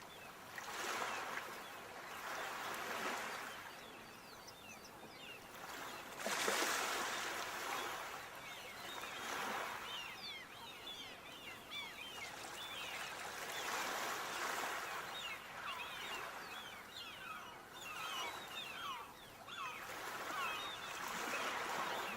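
Sea waves washing in and drawing back, swelling and fading every few seconds. Over them, from about nine seconds in, come many short, high chirps.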